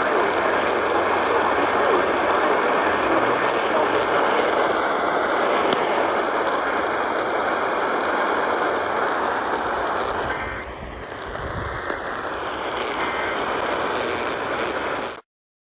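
Steady radio static hiss between alert broadcasts. It dips briefly about two-thirds of the way through, then cuts off to silence just before the end.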